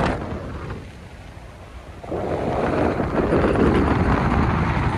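Strong wind buffeting the microphone in a low rumble, easing off for a second or two and gusting back hard about two seconds in.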